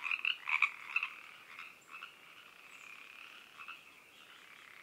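A chorus of Pacific treefrogs croaking, loud and overlapping for about the first second, then thinning to a fainter, steady background chorus with a few separate calls standing out.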